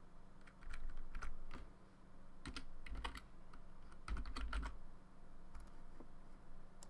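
Computer keyboard typing: quick keystrokes in short irregular bursts, a few clicks at a time.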